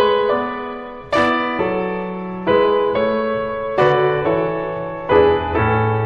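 Slow solo piano music: four chords struck one after another, each left to ring and fade before the next.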